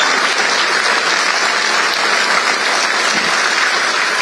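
A large crowd applauding, steady dense clapping.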